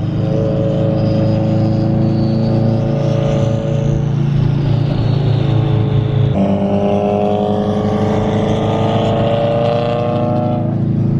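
Car engine and exhaust droning steadily while driving. The drone shifts abruptly about six seconds in, then slowly rises in pitch.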